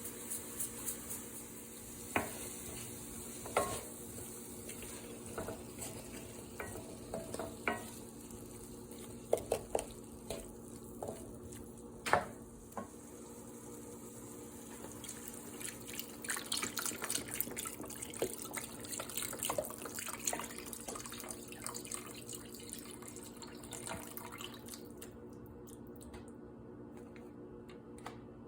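Kitchen sink tap running, with dishes and utensils knocking and clinking in the sink; the water cuts off about 25 seconds in. A steady low hum runs underneath.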